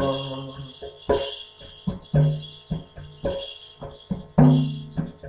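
Instrumental interlude of a Hindi devotional song (bhajan): jingling bell percussion over a steady beat of about one stroke a second, with low held notes, after the last sung note dies away in the first moment.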